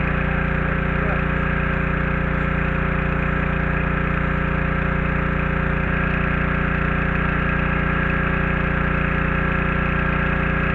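Pressure washer's new small gasoline engine running steadily at a constant speed, driving the pump.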